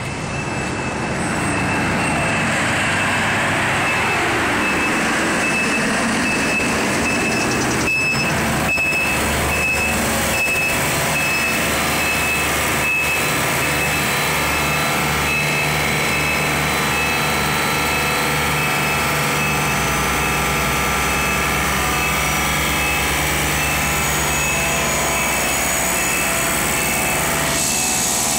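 Refrigeration unit of a reefer shipping container, an Ingersoll-Rand unit, running steadily with its compressor and fans, growing louder about a second in.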